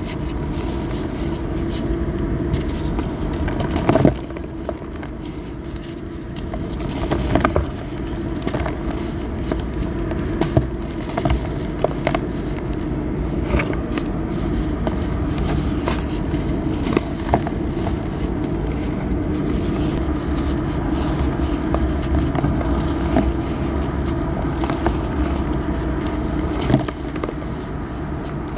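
Dry pure-cement blocks crushed and crumbled between bare hands: continuous gritty crunching and crumbling, with sharp cracks every few seconds as chunks break off, over a steady low rumble.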